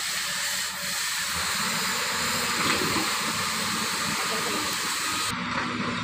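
XCMG XE210i crawler excavator's diesel engine running steadily, with a loud steady hiss over it that cuts off abruptly near the end.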